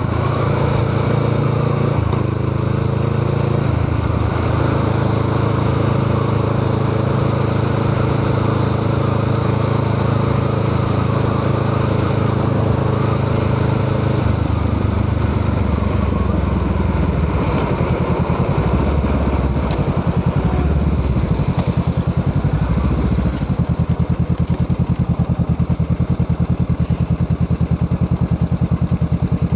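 Honda Rebel 500's parallel-twin engine through a Musarri aftermarket exhaust muffler, running at a steady pitch for about fourteen seconds, then dropping back and settling, after a few short blips, into an evenly pulsing idle.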